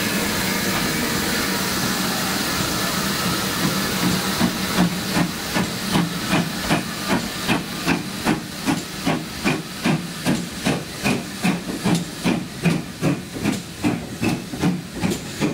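Steady steam hiss, then from about four seconds in the even exhaust beats of a GWR steam locomotive working its train past close by, about two to three beats a second.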